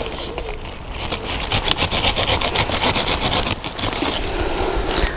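Calabrese plants' leaves rustling and crackling as they are pushed aside and handled, a dense run of crisp rubbing clicks.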